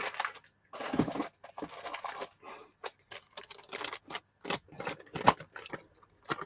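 Crafting supplies being worked out of their plastic packaging: irregular crinkling, scraping and tapping of plastic and card.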